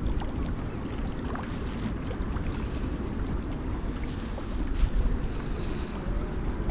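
Wind blowing over the microphone with choppy waves washing against a concrete pier: a steady low rumble under a wash of surf noise.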